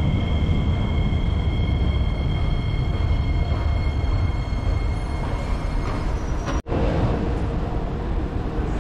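Singapore MRT train running in the station: a loud low rumble with a steady high whine that fades away about six seconds in. The sound drops out for an instant shortly after.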